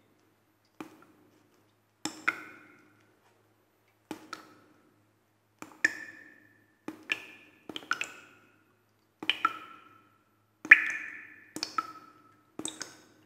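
Sparse struck percussion notes, each a short ping that rings briefly and dies away, at changing pitches. They come irregularly about once a second, with the loudest near the end.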